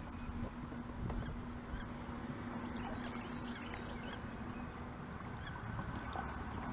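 Kayak paddle strokes: the blades dipping and splashing in the water, with occasional light knocks of the paddle against the hull. A steady low hum runs under it and stops about five seconds in.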